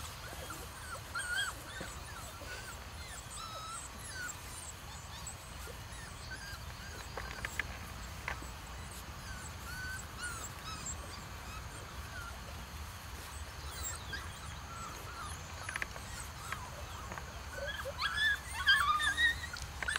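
Puppies whimpering and whining in short, high squeaks on and off, getting louder and more frequent near the end.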